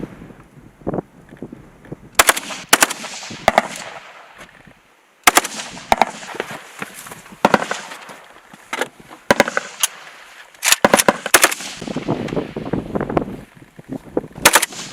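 AK-12 assault rifle firing: single shots and short rapid bursts at irregular intervals, with the longest burst about eleven seconds in.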